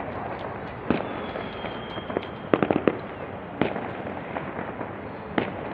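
New Year fireworks and firecrackers going off: scattered sharp bangs, with a quick run of several about two and a half seconds in, over a steady background hiss.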